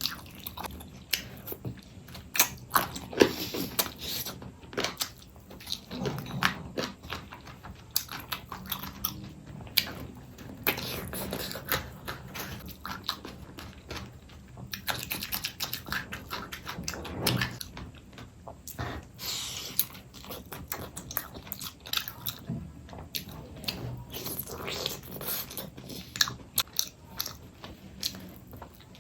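Close-miked chewing and biting of food: irregular crunches and mouth clicks, some sharper and louder than others, with no steady rhythm.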